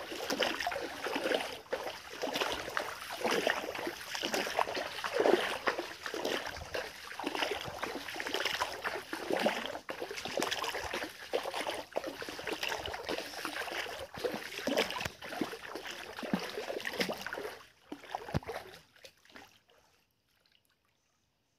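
Water trickling and splashing in a shallow stream, uneven with frequent small splashes, fading to near silence about nineteen seconds in.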